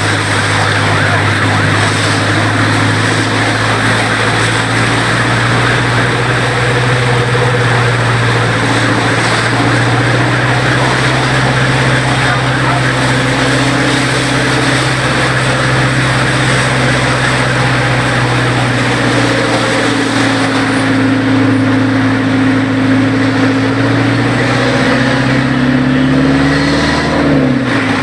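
A vehicle engine running steadily under a constant wash of road and traffic noise; near the end its pitch drops sharply as it slows.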